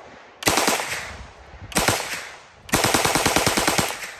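Beretta 38/42 9mm submachine gun firing on full auto in three bursts, two short and then a longer one of about a dozen shots, each with a fading echo. The rate of fire is low and controllable, roughly ten shots a second.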